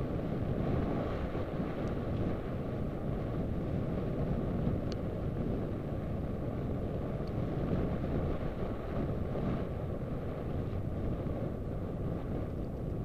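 Steady wind rumble buffeting the microphone, with a few faint clicks.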